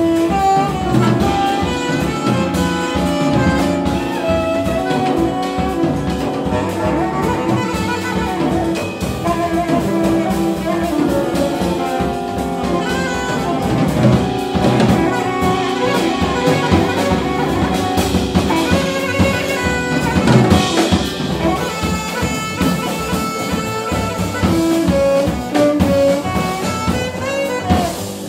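Jazz big band playing live: a tenor saxophone solos over drum kit and the rhythm section.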